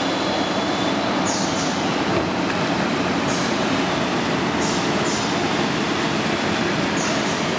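Shrink wrapping machine running: the heat-shrink tunnel and its roller conveyor make a steady mechanical noise, with short high hisses, some in pairs, about every two seconds.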